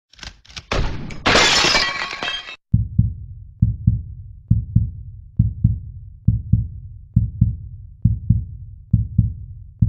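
Intro sound effects: a loud glass-shattering crash over the first two and a half seconds, then a low heartbeat-like double thump that repeats about once a second.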